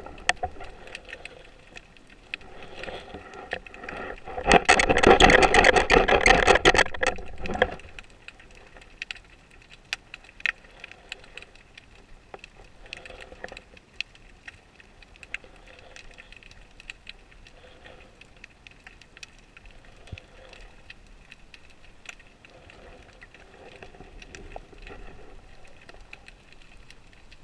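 Underwater sound picked up by a spearfisher's camera: scattered sharp clicks and crackle throughout, with a loud rushing noise of moving water for about three seconds a few seconds in.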